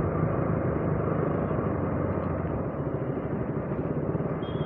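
A motorcycle running steadily while riding, its engine a continuous low hum under road and wind noise.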